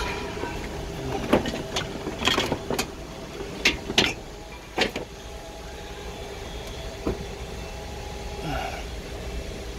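Sharp plastic clicks and knocks, about seven of them, as a Hyundai NF Sonata's front bumper cover is pulled and worked free of its mounting clips, over a faint steady hum.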